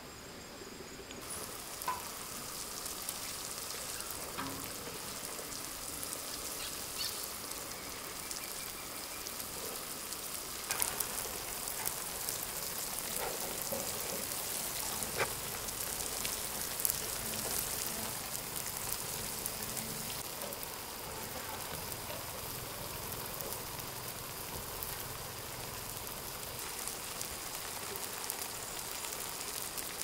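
Water sprinkling from a watering can's rose onto wet garden soil: a steady, rain-like patter that starts about a second in, with a few faint knocks.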